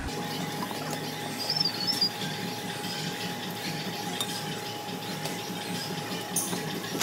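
Glassware and a plastic blender jug clinking and being handled on a bar counter, with a faint steady tone in the background.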